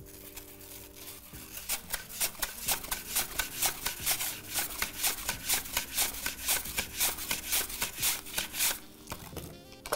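Peeled green apple being sliced thin on a mandoline slicer under a hand guard: quick, even scraping strokes across the blade, about three a second. They start about a second and a half in and stop about a second before the end.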